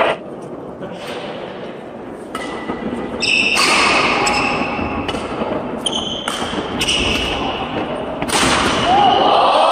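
Badminton rally: rackets hitting the shuttlecock about once a second, with sneakers squeaking on the wooden court floor between hits.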